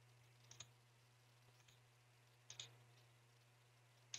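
Faint computer mouse clicks: three press-and-release pairs, about half a second in, about two and a half seconds in, and at the end, over near silence with a faint steady low hum.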